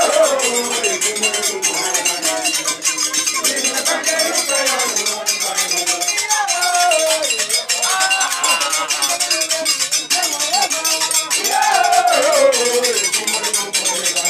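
A crowd singing and chanting together in many overlapping voices, with frequent sharp metallic clinks running through it.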